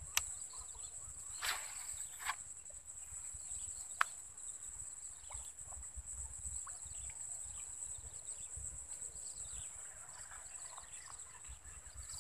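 Outdoor marsh ambience: a steady high-pitched buzz throughout with scattered faint bird chirps, a low rumble, and a few sharp clicks in the first four seconds, the sharpest about four seconds in.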